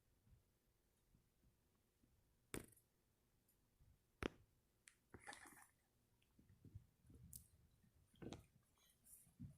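Near silence broken by a few faint, sharp clicks and a brief soft rustle.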